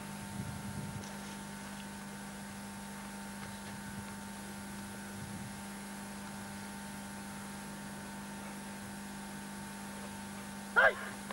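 Steady electrical mains hum with faint hiss on the old video recording's sound track. Near the end comes one brief, loud, high-pitched cry.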